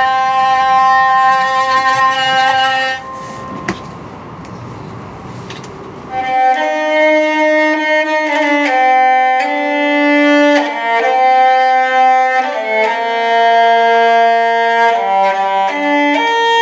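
Hurdy-gurdy playing a tune of held notes. About three seconds in the music breaks off for about three seconds of quieter rushing noise, then the hurdy-gurdy tune comes back and carries on, moving from note to note.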